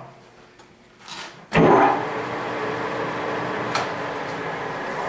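Goodway GW1660 gap-bed lathe: quiet at first, then a sharp clunk about a second and a half in, after which the geared headstock runs steadily at 155 RPM with a steady gear hum.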